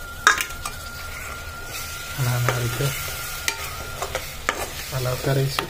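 Metal slotted spatula stirring freshly added tomato purée into a sizzling fried onion masala in a nonstick kadai. Sharp knocks of the spatula against the pan come now and then, the loudest a bit under half a second in.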